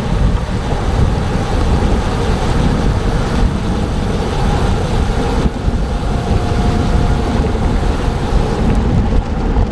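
Wind buffeting the microphone of a bicycle moving at about 23 mph, a loud steady rumble mixed with the rush of the ride on a rain-wet road.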